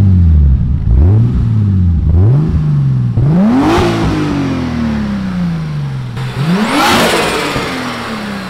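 Turbocharged BMW M20B25 straight-six being revved while the car is stationary: three quick throttle blips, then two higher revs that each fall slowly back toward idle. A high turbo whistle rises and falls with the two higher revs.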